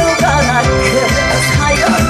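A woman singing a Korean trot song live into a handheld microphone over a loud band backing track played through the PA, her held notes wavering in pitch.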